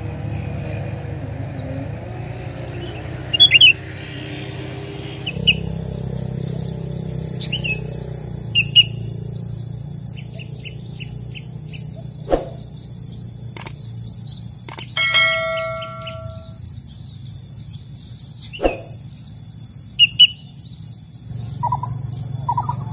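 Sooty-headed bulbuls (kutilang) giving short, sharp chirps every second or two. From about five seconds in, a steady high insect buzz runs beneath them.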